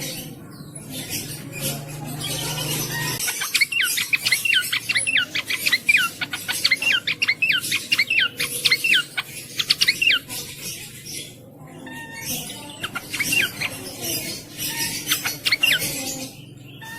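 Cingcoang (jongkangan) songbird singing: a fast, lively run of many short sharp notes, each sweeping downward, lasting several seconds, then shorter bursts of the same song after a brief pause.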